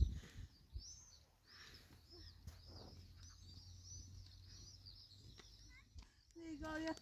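Small birds chirping faintly, a quick run of short, high, arched notes, over a low steady hum.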